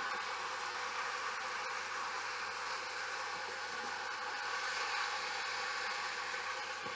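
Chicken and tomato mixture sizzling in a pan, a steady even hiss.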